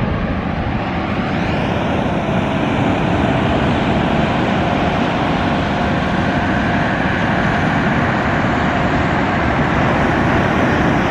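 Twin Suzuki 140 four-stroke outboard motors running under power as the ski-boat drives out through the surf, mixed with the steady rush of breaking waves.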